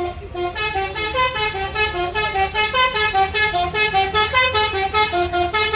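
Telolet basuri multi-tone bus horn playing a quick melody of short notes, about four to five notes a second.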